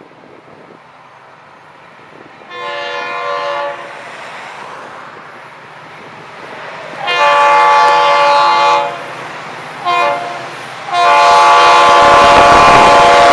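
Diesel freight locomotive's air horn sounding the grade-crossing signal as the train approaches: a long blast, a second long one, a short one, then a long one that runs on, each louder than the last. The locomotive's engine rumble comes up under the final blast.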